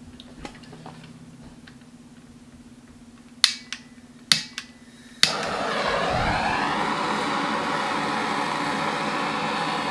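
Handheld gas torch: its igniter clicks about four times, then at about five seconds the torch lights and burns with a loud, steady hiss.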